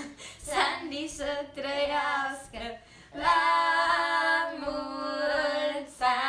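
Girls' voices singing unaccompanied, a birthday greeting song, the line ending in long held notes.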